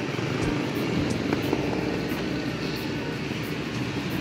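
Steady rumble of engine noise, like motorbike traffic running past, with a faint click or two.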